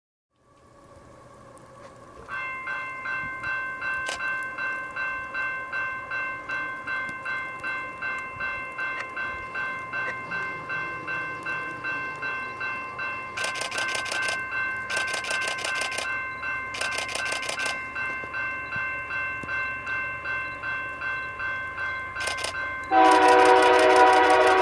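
Level-crossing warning bell ringing steadily, about two strokes a second, as a freight train approaches. Near the end the lead locomotive's horn starts blowing, loud over the bell.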